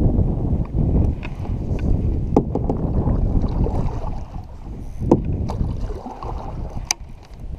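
Wind buffeting the microphone on a fishing kayak, an uneven low rumble, with a few short sharp knocks and clicks scattered through it.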